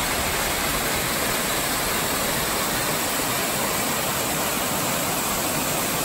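Water cascading over rocks and pouring into a pool at the foot of a waterfall: a steady, full rush of falling water.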